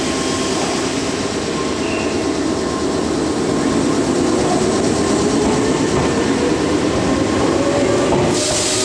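Meitetsu 6000-series electric train pulling away from the platform and gathering speed, its traction motors whining in a slowly rising pitch over the running noise of the wheels. A hiss comes in near the end.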